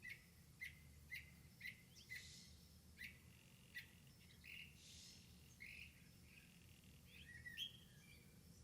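Faint bird chirping: short chirps about twice a second, becoming a more varied twittering in the last couple of seconds.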